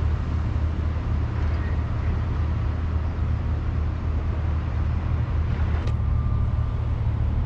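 Steady low outdoor rumble.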